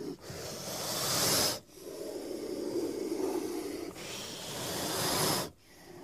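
Snake hissing: two long hisses, each growing louder for about a second and a half and then cutting off abruptly, with a softer, lower breath sound between them.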